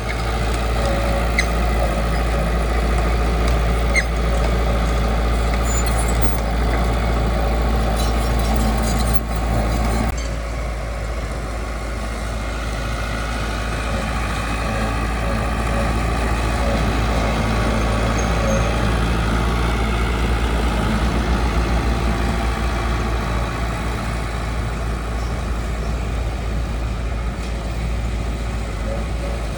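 Heavy diesel construction machinery running steadily, with a strong low rumble. There are a couple of short clicks in the first few seconds, and the sound eases slightly about ten seconds in.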